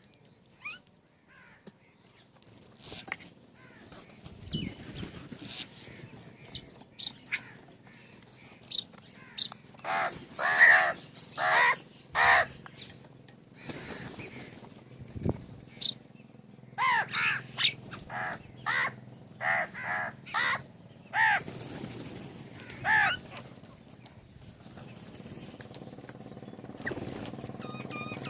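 Crows cawing in two bouts of repeated harsh caws: a short series, then a longer run of about eight. Smaller birds give high chirps in between.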